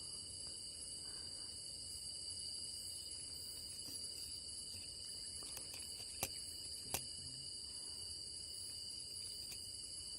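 Night insect chorus of crickets and other insects, ringing in several high, steady tones. Two sharp clicks come about six and seven seconds in.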